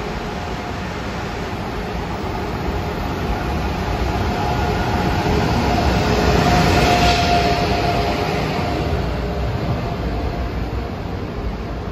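Amtrak Acela high-speed electric trainset (Alstom Avelia Liberty power car) running past close by along a station platform. Its wheel and running noise builds to its loudest as the power car goes by about six seconds in, with a steady whine, then eases as the coaches follow.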